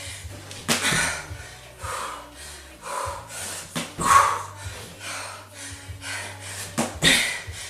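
A woman breathing hard through a fast set of wide-stance squats, huffing out a breath about once a second, with a few sharp thuds.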